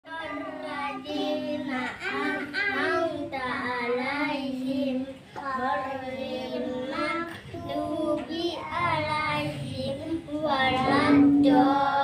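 Children's voices chanting Arabic prayer recitation aloud in a sing-song way, in the standing part of the Muslim prayer (sholat).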